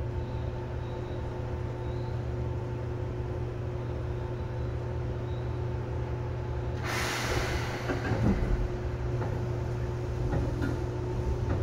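Seibu 2000 series electric train standing still, its under-floor equipment giving a steady hum with fixed tones. About seven seconds in there is a burst of compressed-air hiss, typical of the brakes releasing. Near the end the traction motors begin a rising whine as the train starts to pull away.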